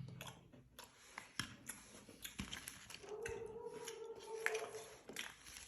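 Quiet eating of Kinder Joy chocolate cream: scattered soft clicks and small mouth sounds, with a steady held hum-like tone lasting about a second and a half from about three seconds in.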